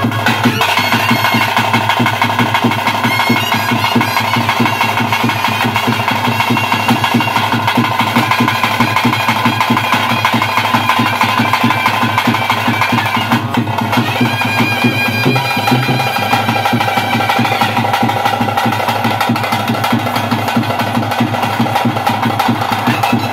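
Bhuta kola ritual music: fast, continuous drumming with a reed pipe holding a melody over it, the tune shifting pitch about two-thirds of the way through.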